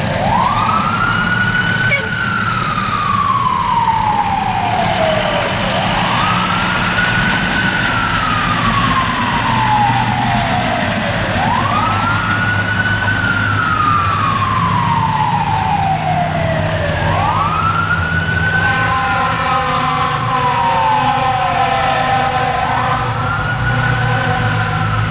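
Fire truck siren on wail, sweeping up quickly and falling slowly about every five and a half seconds, over a diesel engine's rumble. A steady multi-note horn joins for a few seconds about three quarters of the way through.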